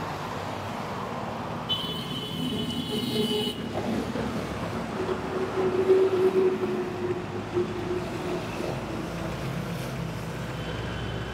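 Road traffic passing, with a brief high-pitched tone about two seconds in and a steadier lower tone in the middle, loudest around six seconds.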